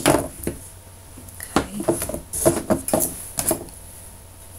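Irregular clicks and knocks of something being handled close to the microphone, busiest in the first three seconds and dying away near the end.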